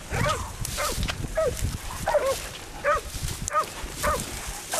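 Hog-hunting dog barking repeatedly, short sharp barks coming about every half second to a second.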